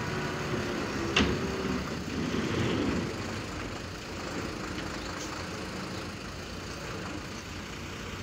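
Boom truck's diesel engine running steadily, powering the truck-mounted crane as it hoists a water tank by one end. A single sharp clank about a second in.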